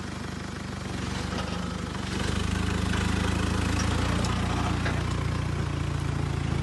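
Nissan Patrol GR's engine running at low revs as the 4x4 crawls through a steep rutted gully. It gets louder and deeper about two seconds in, as it takes more load.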